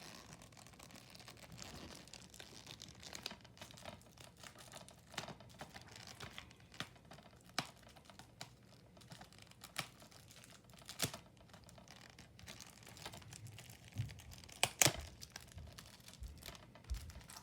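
Plastic crinkling and tearing with scattered sharp clicks as a shrink-wrapped DVD case is unwrapped and handled. The clicks come irregularly, with a few louder ones about eleven and fifteen seconds in.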